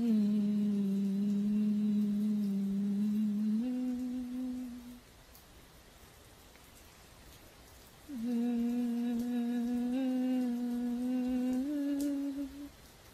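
A woman humming a slow tune in two long held phrases, each stepping up a note near its end, with a pause of about three seconds between them.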